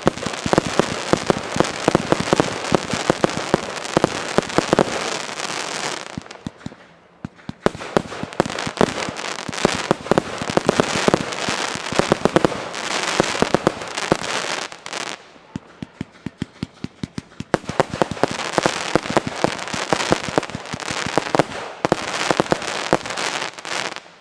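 Fireworks4All Brotherhood (GF182525-JD) firework firing shot after shot in quick succession, each burst breaking into dense crackling. It goes in three stretches with two short lulls between them, and the last crackle fades near the end.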